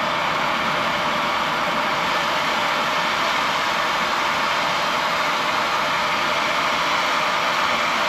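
Oxy-fuel track torch flame hissing steadily against AR 450 steel plate as it heats and cuts the metal.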